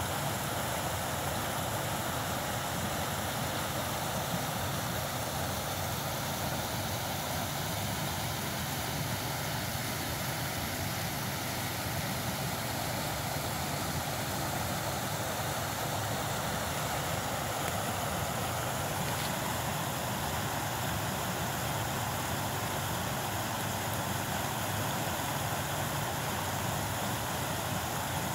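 Shallow creek rapids rushing over rocks: a steady, even rush of water.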